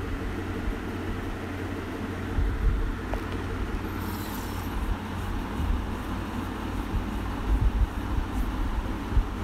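Steady low background rumble with irregular low thumps.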